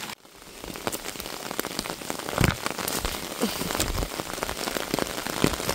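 Steady rain pattering on a fabric canopy overhead, a dense patter of drop taps. A low thump comes about two and a half seconds in.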